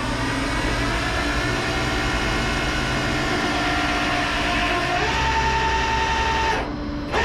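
Flatbed tow truck's engine running steadily under load as the bed is worked, with a steady whine on top that steps up in pitch about five seconds in.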